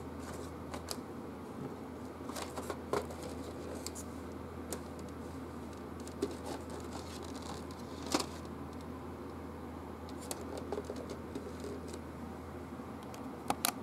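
Handling noise as a game set is packed into its box: scattered light clicks, knocks and scrapes as the board and pieces are set into the box tray, with a sharper knock about eight seconds in and another near the end. A steady low hum runs underneath.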